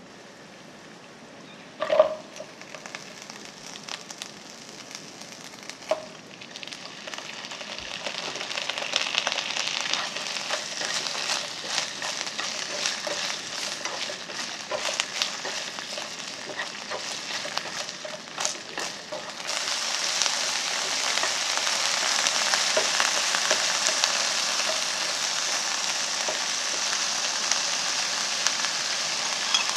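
Shrimp and okra sizzling in oil in a nonstick frying pan while chopsticks stir them, tapping against the pan. The frying starts faint, a sharp knock comes about two seconds in, and the sizzle builds and turns louder about two-thirds of the way through.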